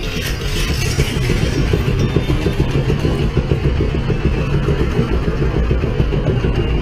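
Motorcycle engine running steadily, a low rough rumble with no revving, from a bike lying on its side after a crash.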